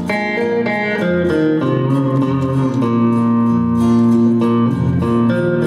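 A small live band playing: acoustic guitar, electric guitar and bass guitar together, with plucked and strummed notes and one note held for a couple of seconds near the middle.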